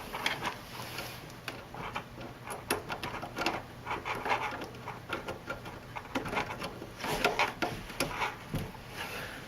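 A power cable and its plug being handled and plugged in: irregular light clicks, taps and plastic rustles, a few sharper clicks among them.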